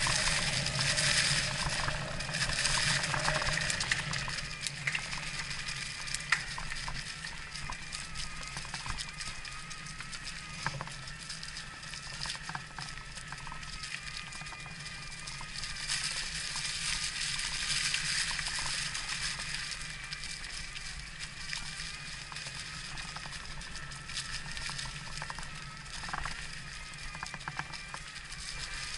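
Electric mountain bike riding a trail, with tyre noise and scattered knocks and clicks from the bike over rough ground. From about eight seconds in, a thin steady whine from the motor carries over the riding noise and fades near the end.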